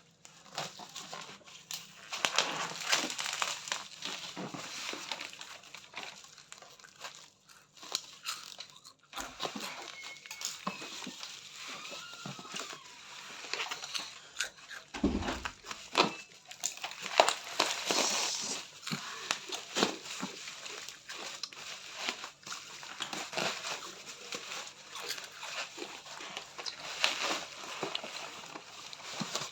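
Packaging being handled and opened: irregular crinkling and rustling with many small clicks and crackles.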